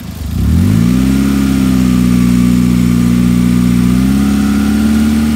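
A motor engine speeding up about half a second in, then running at a steady pitch, rising slightly again about four seconds in.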